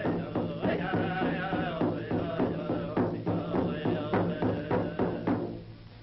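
Native American chant: voices singing over a steady drum beat of about three beats a second, fading out about five and a half seconds in.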